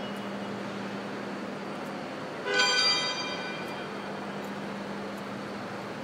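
Steady indoor hall noise with a constant low hum; about two and a half seconds in, a single short metallic clang rings out and fades within about half a second.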